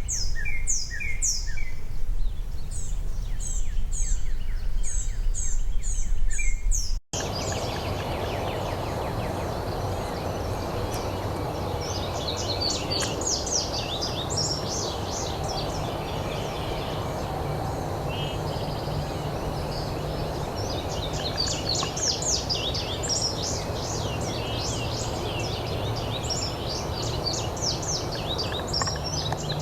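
Small birds chirping and singing over steady outdoor background noise. The sound cuts out for an instant about seven seconds in, then a steadier hiss carries on and the chirping thickens a few seconds later.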